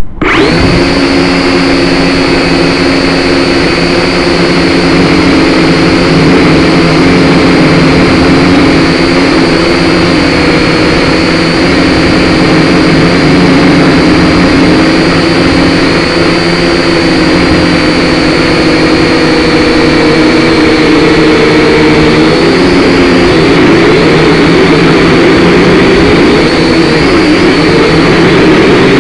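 Small quadcopter drone's motors and propellers buzzing in flight, a loud, steady multi-tone whine heard close up from the drone's own camera. It starts suddenly, and its pitch wavers and shifts near the end as the drone manoeuvres.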